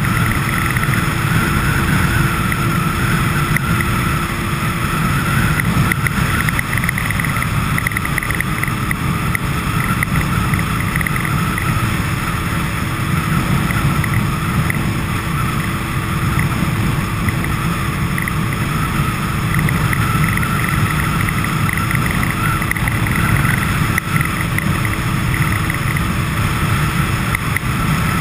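A vehicle running with a steady low rumble and hum, and a light buzzing rattle that comes and goes.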